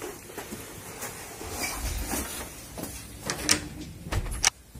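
Office door being handled: scattered clicks and knocks, with a dull thump about four seconds in as the door shuts.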